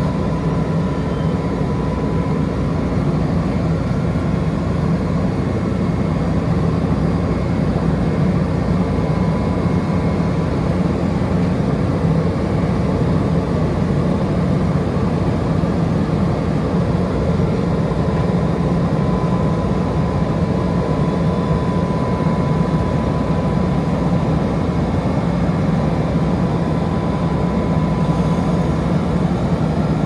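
Perkins diesel engine of a Vögele Super 1800-2 asphalt paver running steadily at a constant speed, with a thin steady whine over it.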